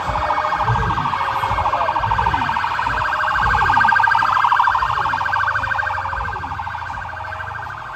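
Fast-warbling siren, growing louder to a peak about four seconds in and then fading. A lower tone slides downward about once a second underneath it.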